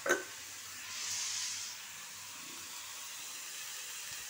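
Food sizzling steadily as it fries on a gas stove, with one sharp metallic clank at the start and a louder stretch of sizzle about a second in.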